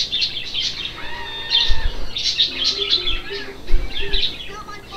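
Cartoon jungle sound effects from a TV's speaker: monkeys screeching among chirping calls, and an elephant trumpeting.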